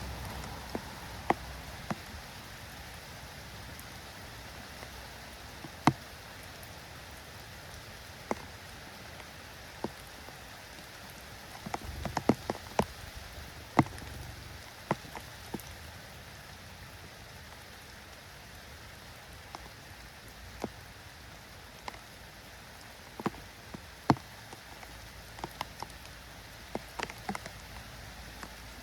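Light rain falling steadily, an even patter with sharp taps at irregular intervals, a cluster of them around the middle.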